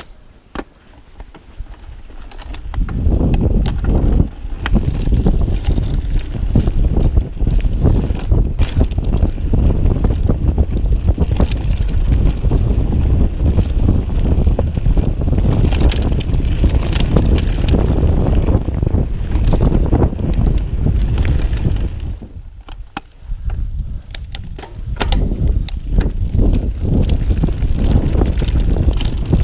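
Mountain bike descending a dirt forest trail: wind buffeting the camera's microphone and tyres rumbling over dirt and roots, with frequent knocks and rattles from the bike over bumps. Fairly quiet for the first couple of seconds, then loud, easing briefly about three-quarters of the way through.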